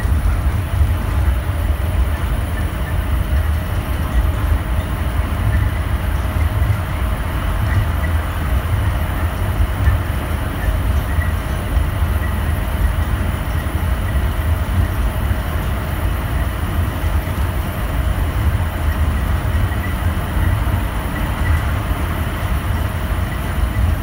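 Underground airport shuttle train running through a tunnel, heard from inside the car: a steady deep rumble with a hiss of rolling noise over it.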